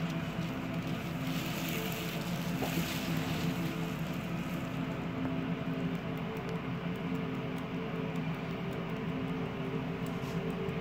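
Cosmetic tattoo pen humming steadily as its needle works pigment into skin.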